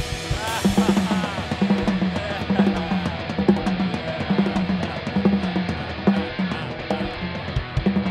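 Rock band playing with no singing: a drum kit keeps a steady beat of bass drum and snare under a low riff that repeats about twice a second.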